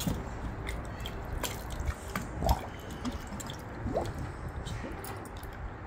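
Hands swishing through water in a stainless steel pot, breaking up a clay idol so it dissolves: small drips, squishes and splashes, with one louder plop about two and a half seconds in.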